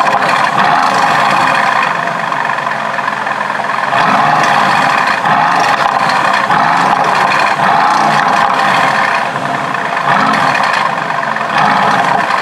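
Mercedes-AMG GT S's 4.0-litre twin-turbo V8 running in race mode with the sports exhaust open. Its note swells briefly a few times.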